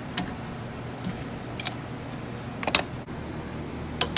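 A few light metallic taps and clicks, then a sharp hammer strike near the end, as a broken turbo-flange stud is tapped out, over a steady low hum.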